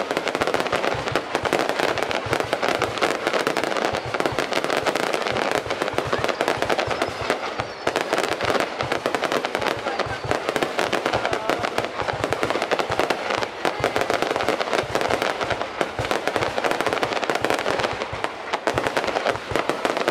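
Many fireworks going off at once, a dense, unbroken stream of rapid bangs and cracks with no pause.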